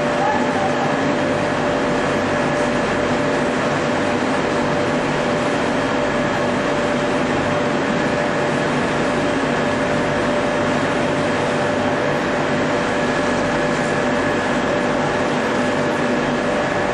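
Ring rolling mill running steadily: a continuous machine hum with a constant tone over a noisy bed of motor and drive sound, no strikes or impacts.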